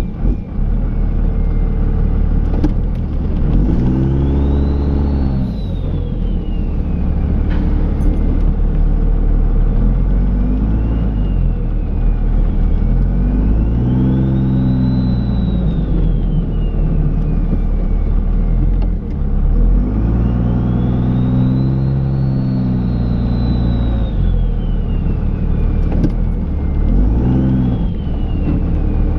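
Cummins turbodiesel engine of a Dodge Ram pickup revving up and easing off about five times, working under load, with a high whine rising and falling with each surge. A few sharp knocks are heard along the way.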